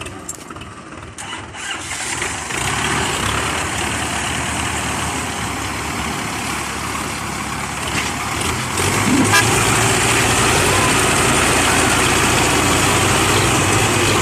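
Tractor diesel engine running hard under heavy load as it pulls against a loaded trolley hard enough to lift its front wheels. It gets louder in steps, with a clear jump about nine seconds in, then holds a steady low drone.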